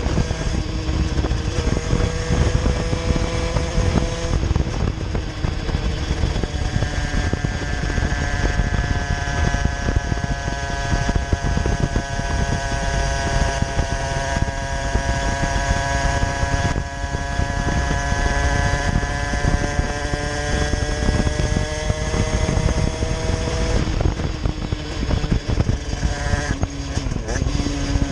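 Derbi moped's 70cc Airsal cast-iron two-stroke engine revving under way through its expansion pipe. The pitch shifts in the first few seconds, then one high note is held for a long stretch, rising slowly and easing off, until it drops away near the end. Heavy wind noise on the microphone runs underneath.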